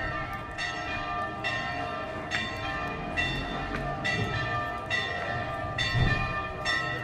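Church bell ringing in steady, evenly paced strokes a little under a second apart, each stroke ringing on into the next. It is a bell calling people to church.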